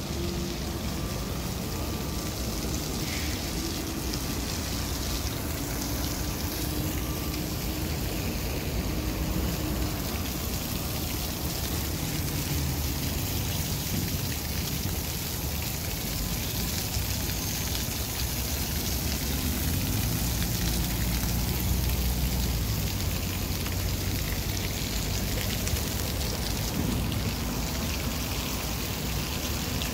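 Park fountain splashing into its basin, a steady rush of falling water, with city traffic rumbling past; the traffic grows louder about twenty seconds in.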